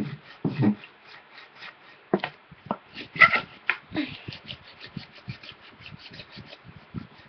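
Hockey tape being rubbed back and forth along a hockey stick shaft to lay down tape tar: a quick, irregular run of scuffs and sticky little clicks.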